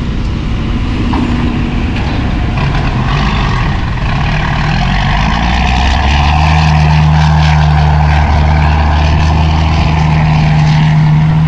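Ten-wheel dump truck's diesel engine running, then pulling hard under load. About six seconds in it rises to a loud, steady drone as the truck drives off across soft, rain-slick soil.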